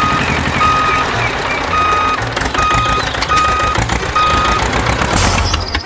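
Vehicle reversing alarm beeping steadily, about six evenly spaced beeps that stop about four and a half seconds in, over a low engine rumble. A short hiss comes near the end.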